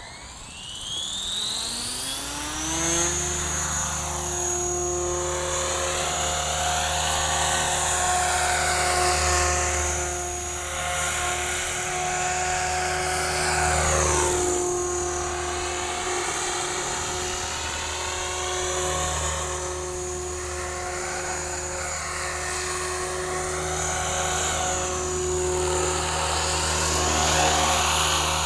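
RJX Vectron 520 RC helicopter spooling up, its whine rising in pitch over the first three seconds. It then runs steadily in a low hover and slow flight, the higher tones wavering as it moves about.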